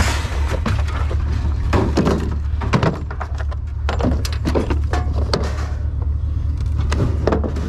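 Irregular knocks, clacks and rattles of scrap items and cords being handled and shifted in a pickup truck's ribbed bed, over a steady low rumble.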